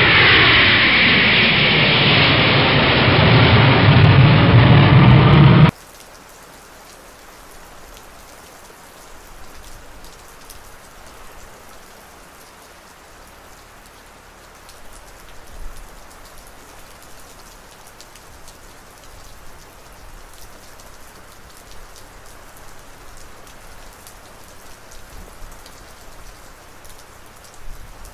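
A twin-engine jet airliner passes low overhead, its engine whine falling in pitch, then cuts off abruptly about six seconds in. After that, steady rain patters quietly, with scattered small ticks.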